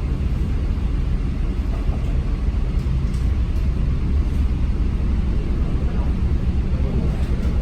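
Steady low rumble of a running vehicle, even throughout with no distinct knocks or changes.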